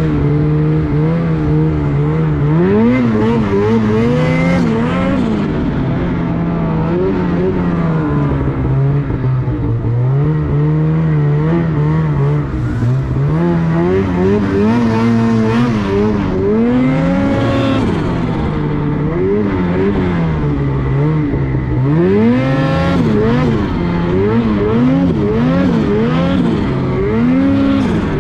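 Snowmobile engine running under way, its pitch rising and falling again and again as the throttle is opened and eased off.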